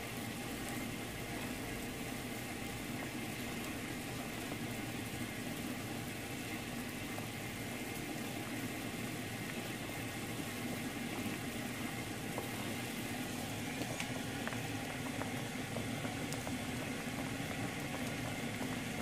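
Pots at a rolling boil on the stove, a steady bubbling hiss of brown sugar syrup and of tapioca pearls cooking in water.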